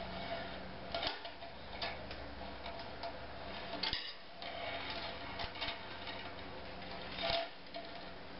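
Light, irregular clicks and ticks of 14-gauge galvanized steel wire being bent and handled by gloved hands, over a steady low hum.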